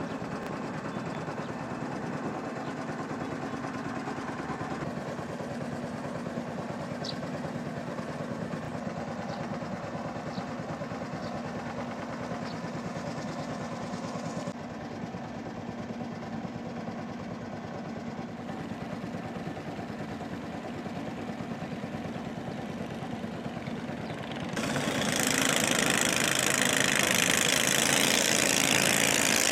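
Small boat's motor running steadily with an even drone. About 25 seconds in, a loud rushing hiss joins it and stays.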